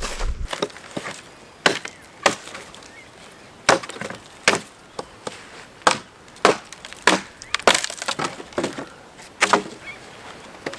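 Wood being struck and split: about a dozen sharp cracks and knocks at irregular intervals, with some splintering.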